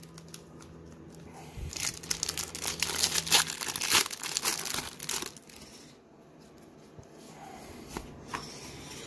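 Foil wrapper of a 1991-92 Pro Set hockey card pack crinkling and tearing as it is ripped open, loudest for about three and a half seconds starting a couple of seconds in. It is followed by softer rustling as the cards are pulled from the pack.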